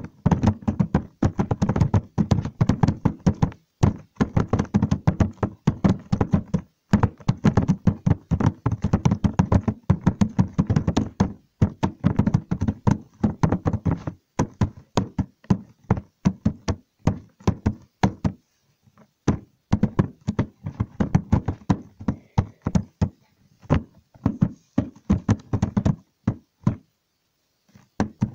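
Rapid, irregular knocks and taps, many a second, coming in runs of several seconds with short pauses between them and a longer lull about two-thirds of the way through.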